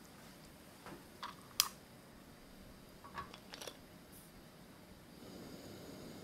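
A glass pot lid is picked up and set onto a saucepan: a few light clinks and knocks, the sharpest about one and a half seconds in, with another small cluster about three seconds in. Near the end a soft low rush comes up as the burner knob is turned.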